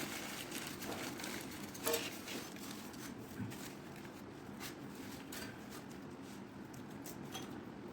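Scattered light clicks and knocks of plumbing work on a bathroom drain trap, with a slightly louder knock about two seconds in.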